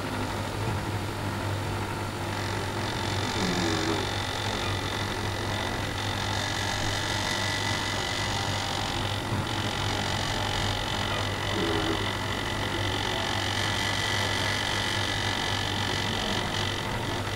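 Small electric motor and gears of a miniature toy train in a lit Christmas village ornament, running steadily: a constant low hum under a thin high whine that grows and fades as the train goes round.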